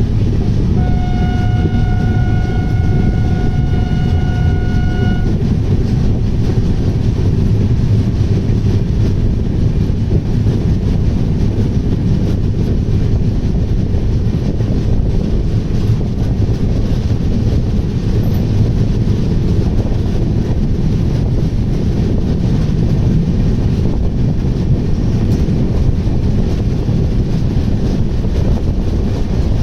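Indian Railways express train running through a station without stopping: its locomotive sounds one long horn blast, about four seconds long, starting about a second in, over the loud, steady rumble of the train's wheels and coaches on the track.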